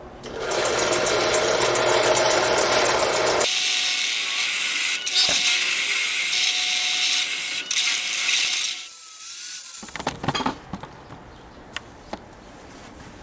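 A hole being drilled through a small steel exhaust clamp with a power drill, a steady grinding noise. About three seconds in it changes abruptly to a higher hiss, and it stops suddenly about ten seconds in, followed by a few light clicks.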